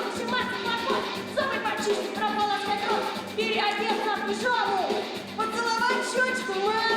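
A song from a stage musical: singing voices over instrumental accompaniment.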